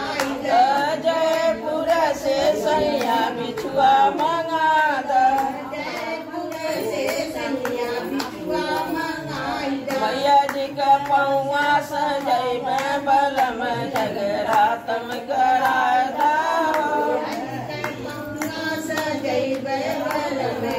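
A group of women singing a devotional song (bhajan) together, keeping time with steady rhythmic hand-clapping.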